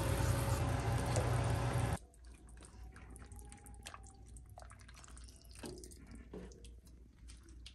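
A pot of sinigang soup boiling, a loud steady bubbling hiss, which stops abruptly about two seconds in. Then soup is ladled from the pot into a bowl: quiet scattered clinks of the ladle, with dripping and small pours of broth.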